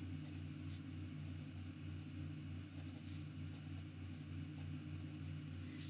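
Fountain pen with a fine, somewhat toothy nib scratching faintly across notebook paper in short strokes as it writes. A steady low hum runs underneath.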